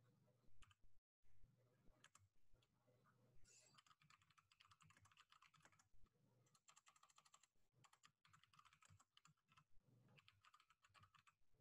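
Faint computer keyboard typing: a few separate taps at first, then runs of rapid key clicks from a few seconds in.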